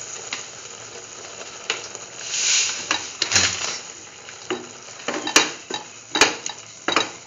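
Pan of potatoes and broth sizzling as semolina is added, with a louder hiss about two seconds in; from about three seconds on a spoon clinks and scrapes against the pan as the semolina is stirred in.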